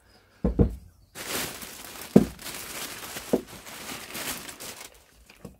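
Clear plastic bag crinkling and rustling as a hand rummages inside it, with a few sharp knocks: two about half a second in, then one at about two seconds and one at about three and a half seconds.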